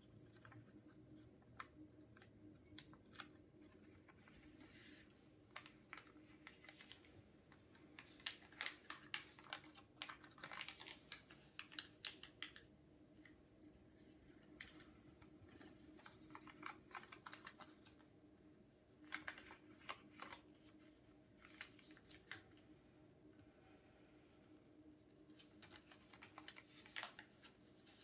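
Origami paper being folded and creased by hand: faint crinkles and crisp clicks of the sheet, coming in irregular clusters with short pauses between them.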